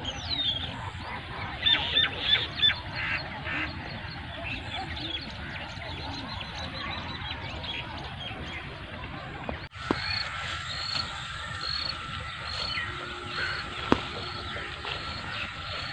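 Birds calling over open farmland, with a cluster of loud calls about two seconds in. After a sudden break near ten seconds, a steady high tone with evenly repeating chirps carries on.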